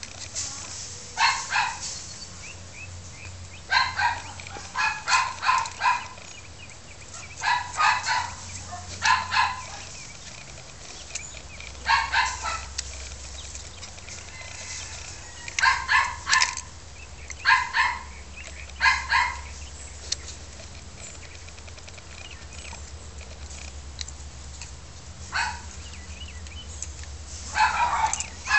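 Miniature Pinscher puppies yapping in short bursts of high-pitched barks as they play, in clusters of two to four yaps every few seconds, with a longer lull past the middle.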